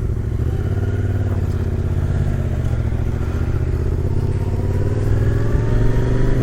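Motorcycle engine pulling away, its pitch rising slowly and steadily as it accelerates, getting a little louder near the end.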